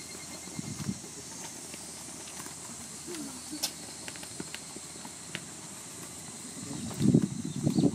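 Steady outdoor hiss with a few faint clicks, then low rumbling bursts of noise about seven seconds in.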